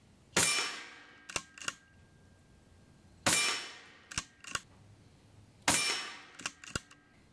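Daystate Delta Wolf PCP air rifle firing three shots about two and a half seconds apart. Each shot is a sharp crack that rings away over about a second and is followed by two quick clicks.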